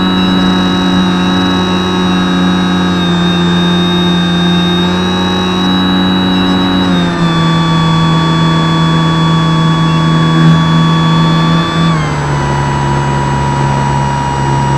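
Electric motor and propeller of an X-8 model aircraft, heard through its onboard camera in flight: a steady drone whose pitch steps down twice, about halfway through and near the end, as the throttle is eased back.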